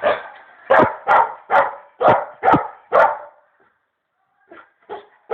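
Dog barking repeatedly, about two barks a second, then a short pause and two softer barks near the end.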